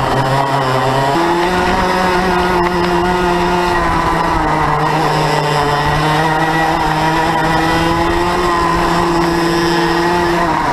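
Two-stroke racing kart engine at full race pace, heard onboard, its pitch stepping up about a second in, climbing slowly through the middle and dropping sharply near the end.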